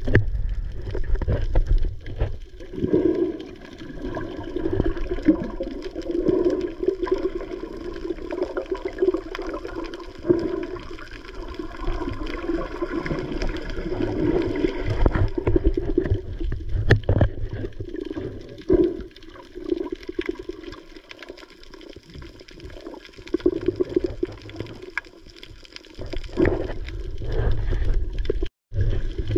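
Muffled water sloshing and gurgling, heard from a camera held underwater while snorkelers swim, with a brief dropout near the end.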